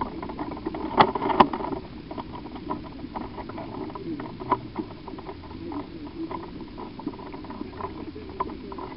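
Players' footsteps scuffing and rustling over the ground in many small irregular ticks, with two sharp clicks close together about a second in.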